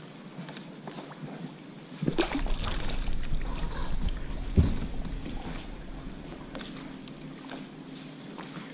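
Wind buffeting the microphone on a small boat, starting about two seconds in and easing off later, with scattered light knocks and clicks and one sharper thump about four and a half seconds in. A faint steady hum comes in during the second half.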